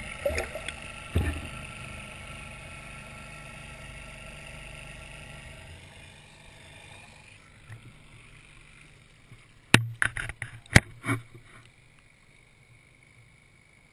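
Muffled water noise from a camera held under the lake surface, fading slowly over several seconds. About ten seconds in, a quick cluster of sharp knocks.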